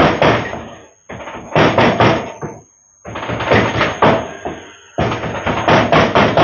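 Rapid knocking strokes in bursts of several a second with short pauses between: a kitchen utensil striking a bowl or board while working the chicken shawarma filling.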